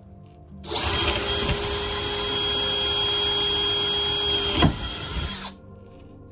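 Power drill boring a starter hole through a particleboard countertop at a corner of a sink cutout, its motor running steadily for about five seconds before stopping.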